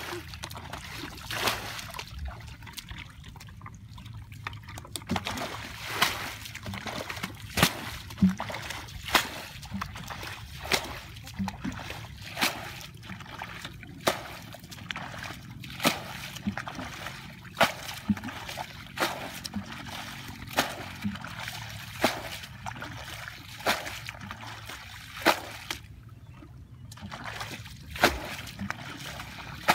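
Water being bailed out of a flooded rice paddy with a plastic bucket: a scoop and a sharp splash of thrown water about once a second, with water trickling and sloshing between throws.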